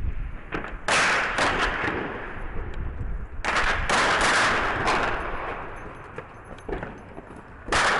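Gunfire in a built-up street, echoing off the buildings: a burst of shots about a second in, a longer, louder one in the middle that slowly dies away, and another near the end.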